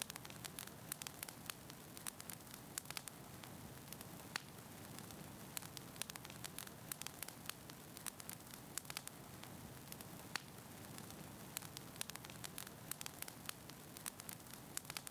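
Faint steady static hiss with irregular crackling clicks, a few a second, over a low hum.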